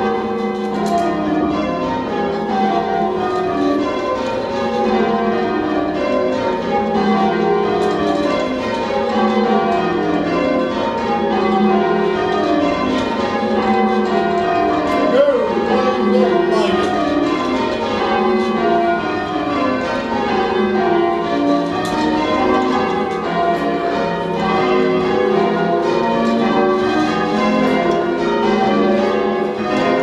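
English change ringing: a ring of church bells swung full circle by ringers on hand ropes, each bell striking in turn in steadily repeating descending sequences from the highest bell down to the lowest, heard from the ringing chamber beneath the bells.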